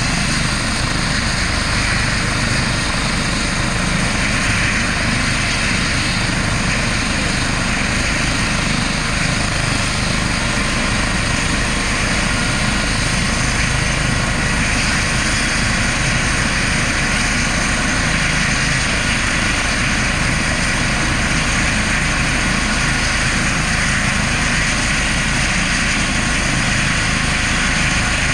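Twin-turbine air ambulance helicopter running steadily on the ground: a constant turbine whine over the noise of the turning rotor.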